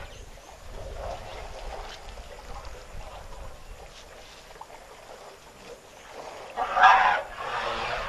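Elephant herd drinking at a waterhole's edge: water sloshing and splashing under their trunks, with a low wind rumble on the microphone. A louder, harsh burst stands out about seven seconds in, followed by a weaker one.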